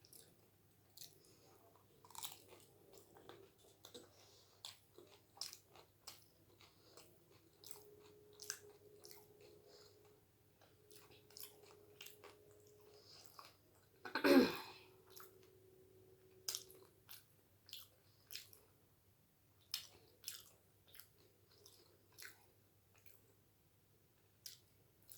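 Close-up chewing of doi fuchka, crisp hollow puri shells filled with yogurt and potato: a steady run of small crunches and wet mouth clicks, with one much louder bite about fourteen seconds in.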